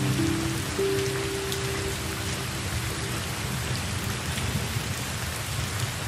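Steady rain falling, an even hiss of drops. A few soft, held music notes sound over it in the first half.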